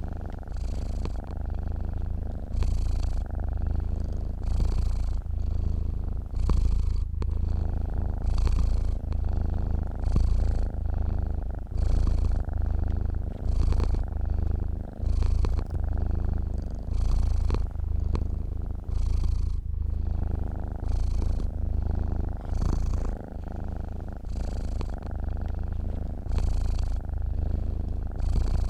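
Domestic cat purring while asleep: a steady low rumble that swells and eases in a regular rhythm, about one breath a second.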